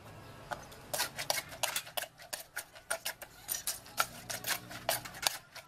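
A pestle pounds food in a clay mortar: quick, irregular knocks, about four or five a second, starting about a second in and stopping shortly before the end.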